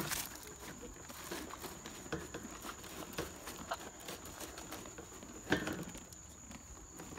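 Horse eating feed: soft, irregular crunching and rustling, with one louder knock about five and a half seconds in.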